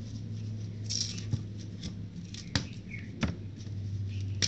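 Paper-wrapped coins being handled and set down: a brief paper rustle and a few sharp clicks, over a steady low hum.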